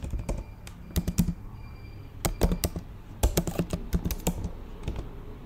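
Computer keyboard typing in several short bursts of keystrokes with brief pauses between them.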